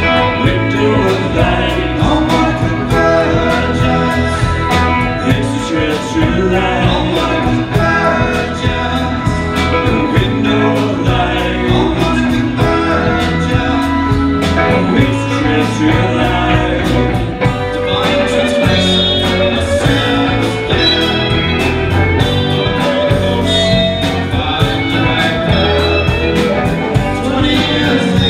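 Live band playing a song with electric guitars, fiddle, keyboard and drums, with a singer's vocals over it.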